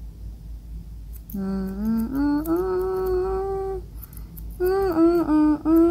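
A person humming a slow tune in two phrases of long, held notes, the first stepping upward and then holding, the second wavering and then holding. Faint snips of grooming scissors cutting a kitten's fur sound underneath.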